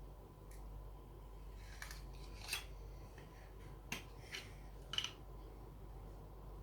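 Small plastic Lego pieces clicking and tapping as they are handled and fitted, about half a dozen sharp separate clicks, the loudest about two and a half, four and five seconds in.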